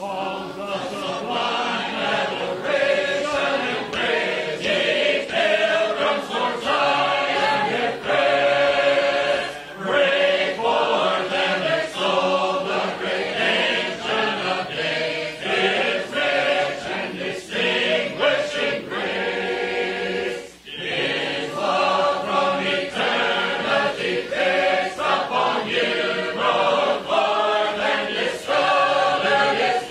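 A choir singing a hymn in parts, unaccompanied, with a brief pause for breath about two-thirds of the way through.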